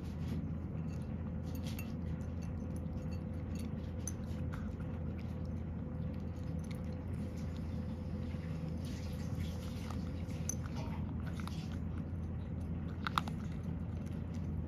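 Cat crunching dry kibble from a bowl: a steady run of small crisp bites and clicks, with one louder click near the end.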